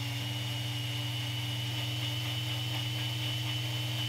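Electric blender running at a steady speed, its motor whirring with a high whine, as it purées cilantro, mint, green chillies and lime juice with a little water into a smooth green chutney.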